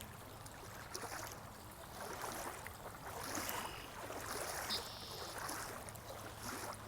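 Flowing water, a steady rushing stream, with a few short high bird calls from about three seconds in.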